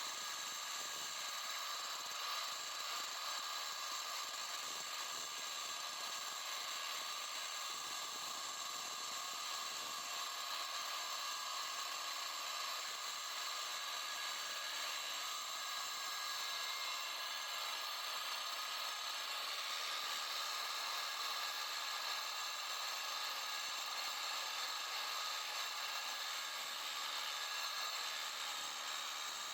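DeWalt DWE490 9-inch angle grinder with a diamond disc running steadily under load, cutting concrete: a continuous high whine with grinding hiss that holds level throughout.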